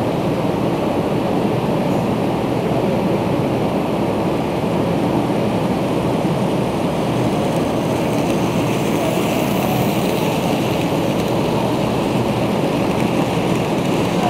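N scale model train running past at track level, its motor and wheels whirring a little louder as the locomotive goes by near the middle, over a steady rushing background noise.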